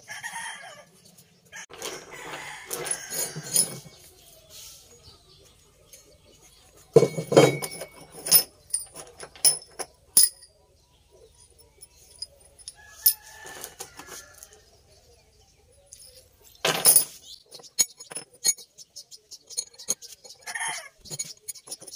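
Steel parts knocking and clinking on a wooden workbench as bolts and a flat bracket are fitted to a rusty motorcycle chain sprocket, loudest twice, about seven and seventeen seconds in. Chickens clucking in the background.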